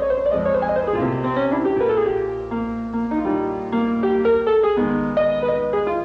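Background piano music: a melody of held notes over chords, changing about every half second.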